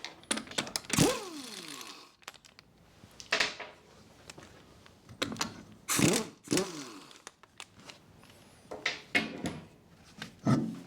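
Metal knocks and clanks as the wheel bolts are undone and the front wheel is taken off the hub: about five separate strikes, several with a short ringing that drops in pitch.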